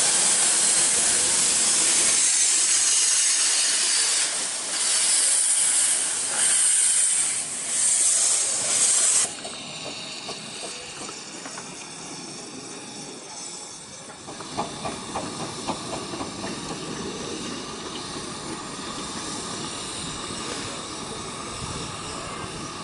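Miniature steam locomotive letting off a loud steam hiss that swells in several surges and stops abruptly about nine seconds in. Then comes the quieter running of the locomotive moving off along the track, with a run of rapid clicks around the middle.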